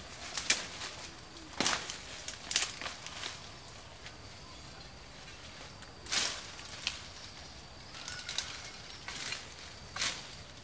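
Leaves and brush rustling and twigs crackling in short, irregular bursts as a person pushes through dense undergrowth and leaf litter. The sharpest rustles come about half a second in, near two seconds, around six seconds and near the end.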